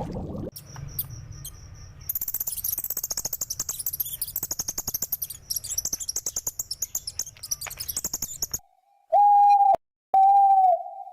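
Birds chirping in a rapid, dense, high-pitched twitter, followed near the end by two long, steady, even-pitched calls.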